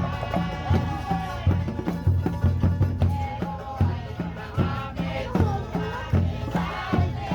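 Background music with a steady bass beat under a melody.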